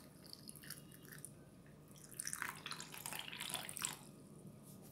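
Cold water poured into a glass over ice cubes, with clicks and splashing that swell into a heavier pour for about two seconds past the middle, then stop.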